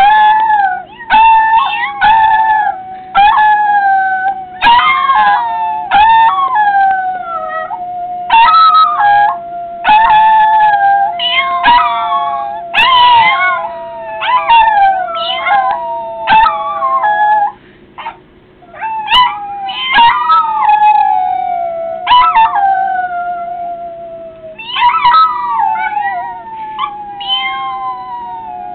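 Yorkshire terrier howling in long held notes that slowly sink in pitch, with one break about 18 seconds in, while short rising-and-falling meows come in again and again over the howl: people meowing, which sets the dog howling.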